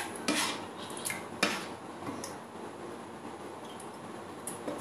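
A ladle knocking lightly against a pan and a glass bowl a few times as the milk mixture is scooped and poured.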